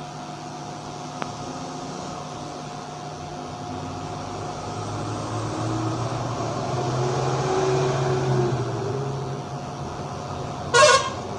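Steady background hum with a passing road vehicle swelling in the middle, then one short vehicle horn toot near the end.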